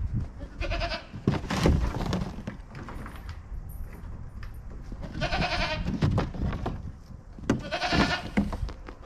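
A goat bleating three times, each call a wavering, quavering bleat lasting under a second, with scattered thumps and knocks in between.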